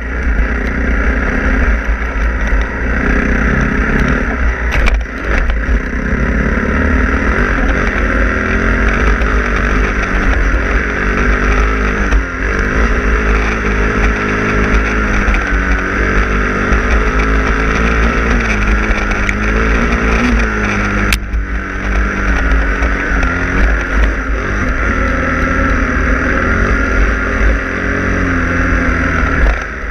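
Kawasaki KLX250 dirt bike's single-cylinder four-stroke engine running under way, its revs rising and falling with the throttle and gear changes, with wind rumble on the microphone.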